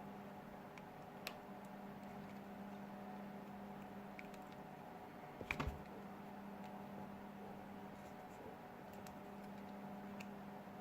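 Faint clicks and light scrapes of small repair tools working on a Samsung Galaxy S6's frame as it is taken off, a little cluster of louder clicks about halfway through, over a steady low hum.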